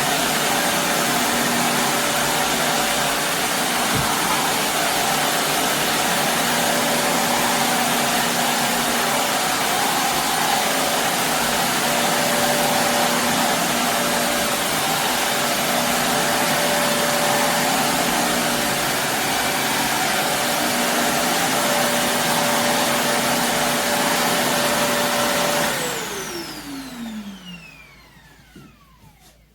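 Shark Navigator Lift-Away upright vacuum running steadily on carpet. It is switched off near the end and its motor winds down in a falling whine.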